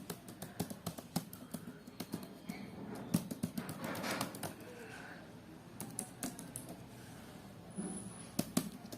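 Laptop keyboard keys being pressed in quick, irregular clicks, tested on a faulty keyboard that is not registering the keystrokes.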